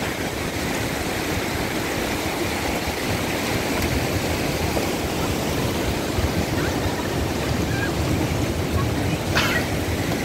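Surf breaking and washing up a sandy beach, a steady rushing noise with a heavy low rumble, and a brief higher sound near the end.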